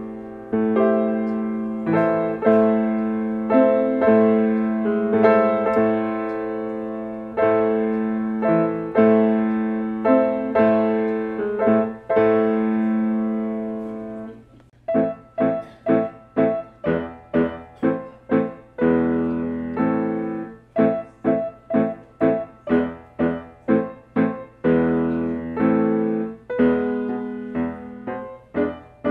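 Solo piano playing: for about the first half, held notes and chords with a steady, legato pulse; after a brief dip in sound about halfway through, quick, short, detached notes at a lively pace.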